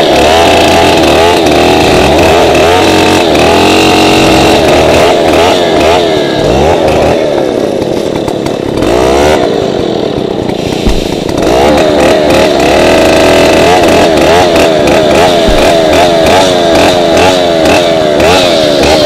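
Stihl 070 two-stroke chainsaw running at high revs while cutting a tree, its pitch rising and sagging again and again. It drops to a lower speed for a few seconds around the middle, then revs back up.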